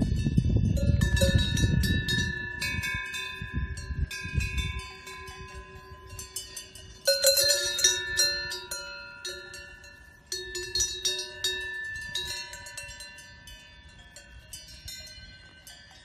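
Several cowbells on grazing cows clanking irregularly at different pitches, each clang ringing on. The loudest clangs come about seven seconds in. A low rumble runs under the first few seconds.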